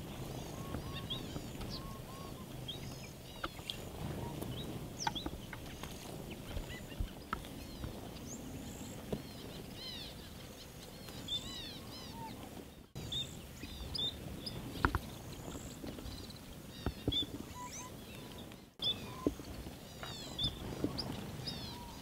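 A flock of small grass finches, Gouldian finches among them, giving many short, high chirps and twitters over a steady low background rumble.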